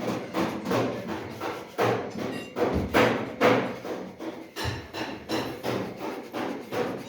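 Repeated hammer blows, a few a second at an uneven pace, loudest about three seconds in.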